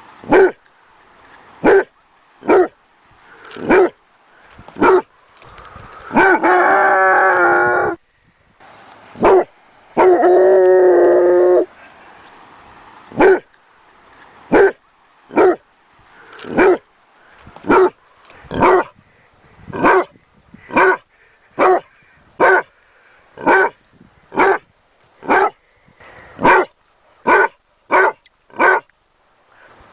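Basset hound puppy barking: short single barks about once a second, broken by two longer drawn-out howls about six and ten seconds in. The barks come faster near the end.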